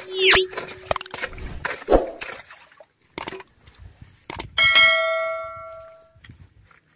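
Subscribe-reminder sound effect: a shimmering swoosh at the start, two sharp mouse-click sounds, then a bright notification-bell ding that rings out and fades over about a second and a half. Faint scrapes and knocks of hands digging among rocks sit underneath.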